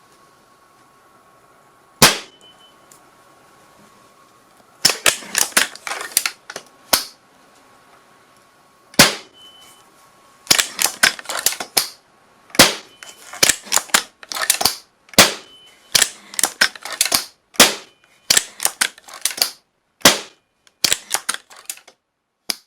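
Gunshot sound effects: a single sharp shot about two seconds in, a quick cluster of shots a few seconds later, another lone shot, then a long irregular run of shots, several a second, through the second half, with one last shot near the end.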